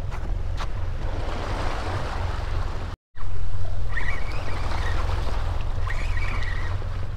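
Steady wind and sea noise around a small boat, with wind rumbling on the microphone. The sound cuts out for a moment about three seconds in. A couple of brief, faint wavering tones come through after that.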